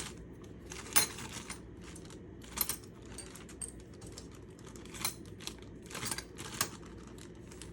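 Leftover pan-assembly hardware going into a small bag: scattered light clicks and clinks of small hard pieces, the sharpest about a second in, with a few more spread through the rest.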